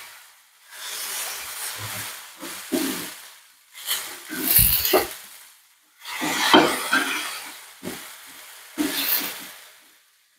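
Flat metal spatula scraping and clinking on a dosa tawa as it flips raw banana slices frying in oil, in a series of about six separate scrapes with brief pauses between, the oil sizzling under them.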